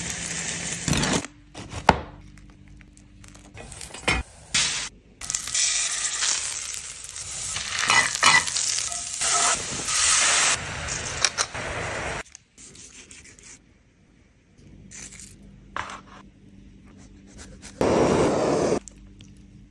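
A string of short kitchen sounds cut together: crusty bread crackling, a sauce poured into a hot pan sizzling for several seconds, and, near the end, a handheld butane torch hissing for about a second.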